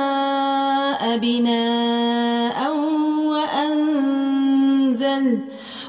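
Quran recitation in the Warsh reading: a single voice chants 'wa-s-samā'a binā'an', drawing its vowels out into long, level melodic notes. One held note lasts about two seconds, and the voice drops away briefly near the end.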